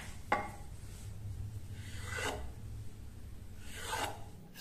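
Kitchen knife cutting thinly rolled dough on a wooden board: a light tap of the blade about a third of a second in, then two short cutting strokes about two and four seconds in.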